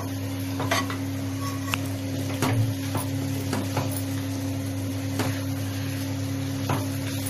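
Spoon stirring brinjal and potato curry in a metal pan, with a few sharp clinks of the spoon against the pan over a light sizzle. A steady low hum runs underneath.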